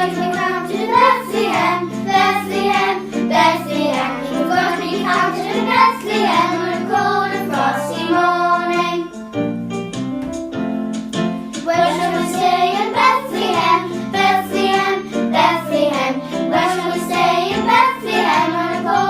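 Background music: a song with singing over an instrumental accompaniment with a moving bass line.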